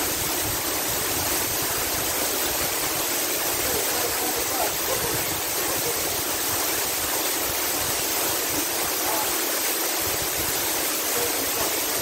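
Waterfall water falling and splashing in a steady, even rush.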